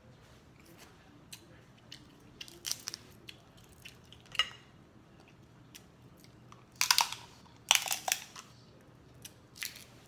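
Close-miked chewing and biting of pan-seared scallops, a series of short wet, crunchy mouth sounds, loudest in a cluster about seven to eight seconds in.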